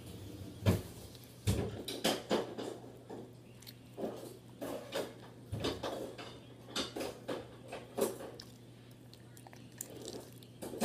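Homemade glue slime being squeezed and kneaded by hand to press the water out, giving irregular wet squelches and clicks.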